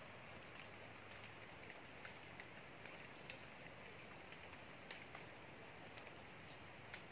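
Faint forest ambience: a steady high hiss with scattered light ticks, and two short high bird chirps, about four and six and a half seconds in.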